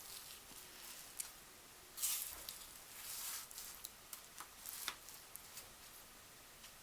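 Faint wet clicks and smacks of someone chewing soft, creamy thawed durian flesh, with two short rustling noises about two and three seconds in.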